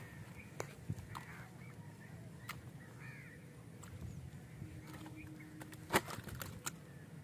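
Quiet outdoor lakeside ambience with a few faint bird calls, broken by scattered sharp clicks and knocks. The loudest knock comes about six seconds in, as a caught fish is handled on a plastic sack.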